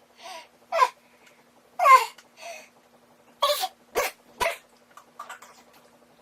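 A man doing exaggerated imitation sneezes: a run of short, sharp vocal bursts, about five, with the last three coming in quick succession around four seconds in.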